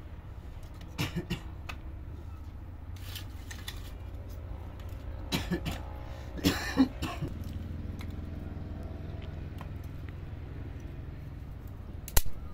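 A person coughing several times in short bursts over a steady low hum, with a sharp click near the end.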